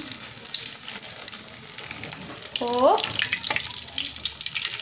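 Boneless milkfish (bangus) fillets frying in hot oil in a wok: a steady sizzle with fine crackling and spattering.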